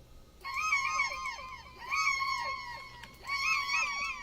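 Fake bird chirps made from a recording pitched up an octave and fed through an MXR analog delay with modulation: clusters of quick, high, bending chirps that repeat in echoes. Three such bursts come about one and a half seconds apart.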